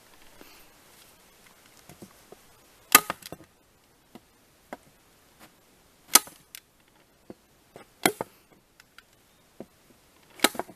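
Stapler clacking four times, a couple of seconds apart, as staples are driven through a paper target sheet into a board.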